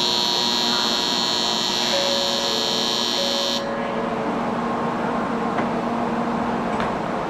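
A high-pitched electronic departure buzzer sounds steadily for about three and a half seconds, then cuts off suddenly: the warning that the Shinkansen's doors are about to close. The N700A's sliding door then shuts, with faint clicks near the end.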